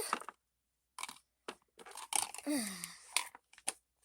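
Light plastic clicks and knocks of dolls and toy furniture being handled and set down. A short falling vocal sound comes about two and a half seconds in.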